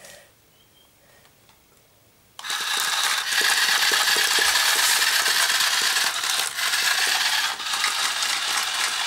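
Radio-control toy tarantula's small motor and gearbox running as it walks, with a steady mechanical whirr and rapid clicking and rattling of its legs; it starts suddenly about two and a half seconds in.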